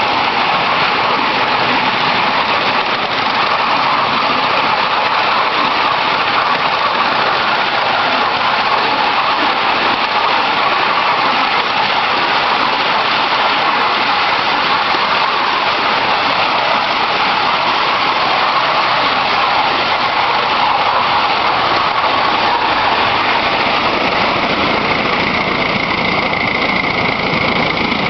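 Ride-on scale model of a South African Railways Class 15F steam locomotive, double-headed, running along the track hauling a train of seated passengers: a steady rushing noise with no separate beats. A steady high tone joins in near the end.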